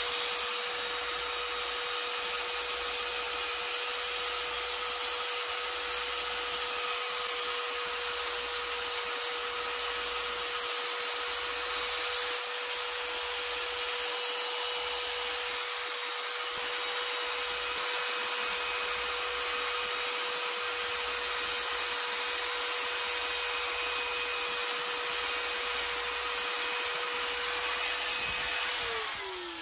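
Electric finger sander (narrow belt sander) running steadily, its belt sanding the carved wood surface with a rasping hiss over a steady motor hum. Near the end the motor is switched off and winds down, its pitch falling.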